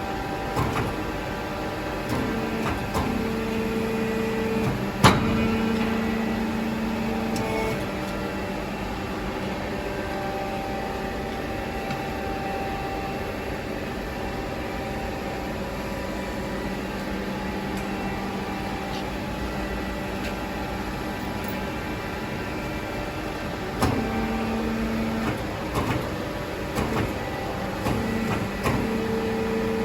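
Machine running with a steady hum and a low tone that cuts in and out, with a sharp knock about five seconds in and a few lighter knocks near the end.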